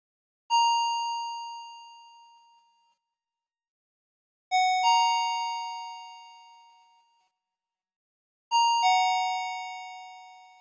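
Recreated Hitachi elevator arrival chimes with clean, bell-like electronic tones, each fading away over a couple of seconds. First comes a single chime. About four seconds later a rising two-note ding-dong sounds, and about four seconds after that a falling two-note chime.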